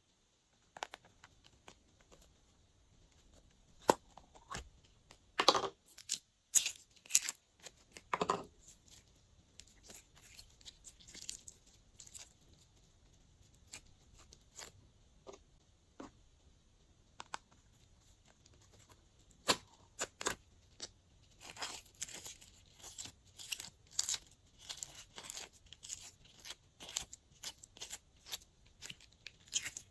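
Glossy slime being mixed, making irregular sticky clicks, pops and crackles with short quiet gaps between them. The sounds come thicker and faster near the end.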